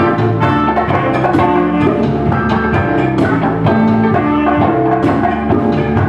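A live band playing: saxophone and trumpet over electric guitar and a drum kit, with held pitched notes and a steady drum beat.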